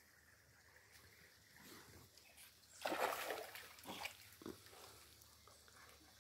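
A dog wading through a shallow creek, splashing the water: faint at first, then a burst of splashing about three seconds in, followed by a few smaller splashes.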